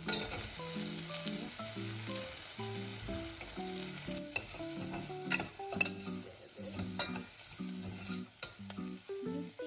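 Onions and green chillies sizzling in hot oil in a pan, being stirred, with a utensil knocking on the pan now and then. A soft melody of background music plays under it.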